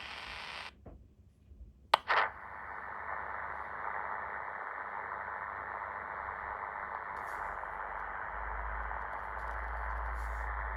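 Portable all-band radio receiver's speaker hissing with static on an empty frequency. The hiss cuts out for about a second, a sharp click follows, and then it returns duller and narrower, as when the receiver switches band or to a narrower filter.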